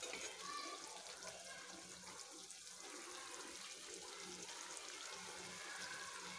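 Fish curry in a mustard and poppy-seed gravy simmering in a wok over a lowered gas flame: a faint, steady soft sizzle, with a faint low hum underneath.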